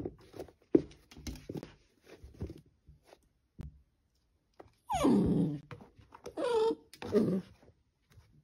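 A dachshund puppy gives three short whining cries, the first falling in pitch, about five to seven seconds in. Before them come light knocks and scuffs as it clambers over a pair of clogs.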